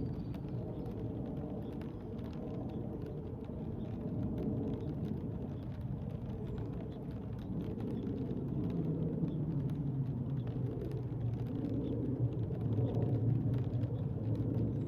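A car on the wet road nearby, its low tyre-and-engine rumble swelling over the second half as it comes closer. Light rain ticks faintly throughout.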